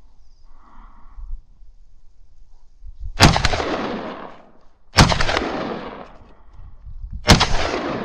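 Shotgun fired three times, about two seconds apart. Each shot is a sharp crack followed by a long echoing tail that fades over a second or more.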